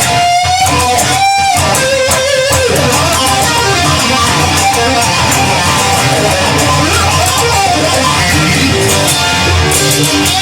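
Music: an instrumental guitar passage with no singing, its notes bent up and down in pitch during the first two or three seconds, over a steady backing.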